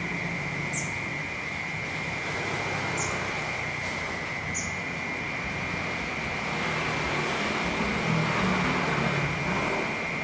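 Cicadas droning in one steady high buzz over the low rumble of city traffic, which swells as a vehicle passes near the end. A few short high chirps sound in the first half.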